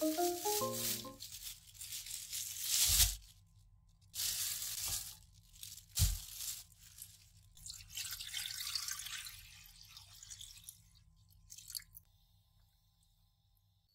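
Bursts of rustling and crackling, with two dull thumps about three and six seconds in. Mallet-percussion background music fades out within the first second.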